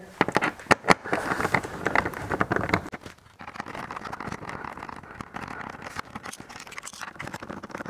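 Clicks and scraping of a Torx T25 screwdriver backing out screws from a motorcycle's plastic front bodywork, with a few sharp clicks in the first second and softer handling noise after.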